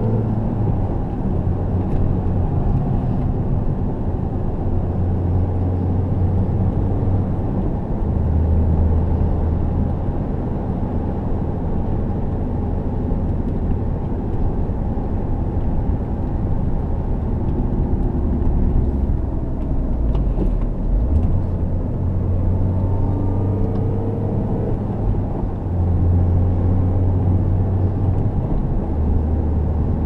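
Cabin sound of a 2005 Mini Cooper S (R53) being driven: its supercharged 1.6-litre four-cylinder engine drones low, its pitch rising and falling several times, over steady road and tyre noise.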